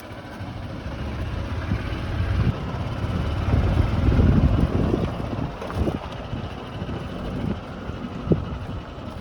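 Vehicle driving over a road: a steady low rumble of engine and road noise that swells to its loudest about four seconds in, with a short knock near the end.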